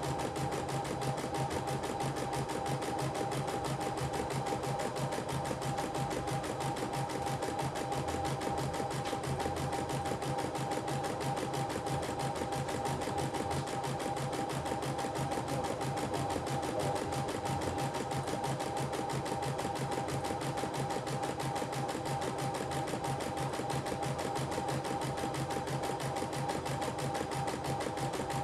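CNY E960 computerised embroidery machine stitching out a design in its hoop: a fast, even needle clatter over a steady motor hum, running without a break.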